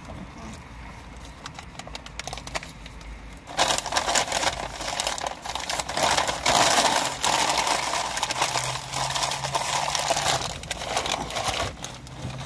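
Paper crinkling and rustling as it is handled and crumpled by hand, starting about three and a half seconds in and lasting about eight seconds.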